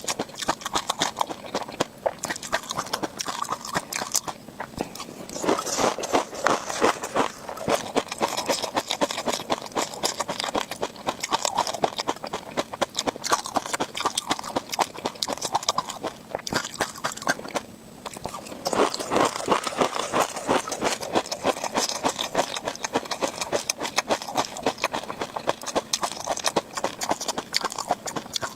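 Close-miked chewing of crunchy tobiko (flying fish roe): a dense run of rapid small pops and crackles as the eggs burst. There is a brief lull a little past the middle.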